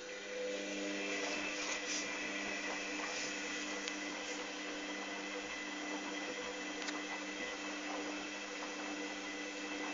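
Hoover Dynamic DYN 8144 D front-loading washing machine running on a cotton 60 °C program with prewash: a steady motor whine made of several fixed tones, which sets in as the sound begins, with a few faint clicks.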